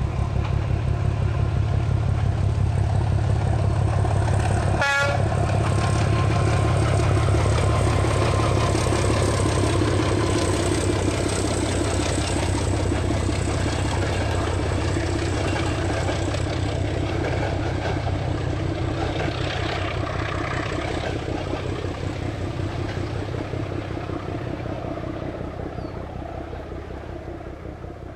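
ČD class 749 'Bardotka' diesel locomotive's six-cylinder ČKD engine running hard, a deep steady throb as it pulls its train uphill past, growing to its loudest about seven seconds in and then slowly fading as it moves away.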